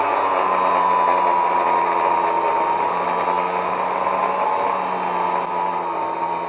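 Angle grinder running under load as it cuts through a steel track link, a steady high whine over a hiss of grinding noise, its pitch sagging slightly partway through.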